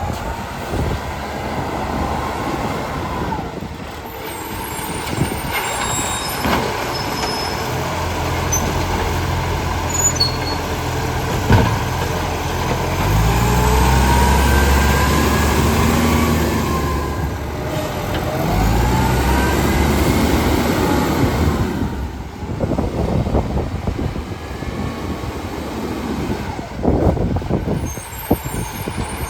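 Garbage truck working: its diesel engine runs harder and steadier for about a dozen seconds in the middle, with rising and falling whines over it and a sharp clack about eleven seconds in.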